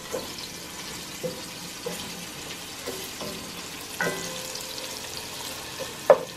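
Chopped onions sizzling in olive oil in a stainless steel pot, stirred with a wooden spoon that knocks against the pot every second or so, with the sharpest knock near the end.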